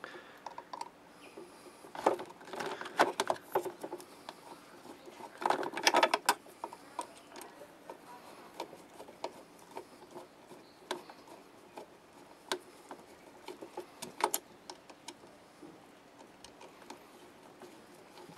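Screwdriver turning out the screws that hold a SaluSpa hot tub pump's plastic housing together: scattered small clicks and scrapes, busiest at about two and six seconds in, with a sharp click about fourteen seconds in.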